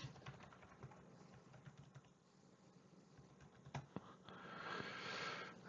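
Faint computer keyboard typing and mouse clicks, with two sharper clicks a little past the middle.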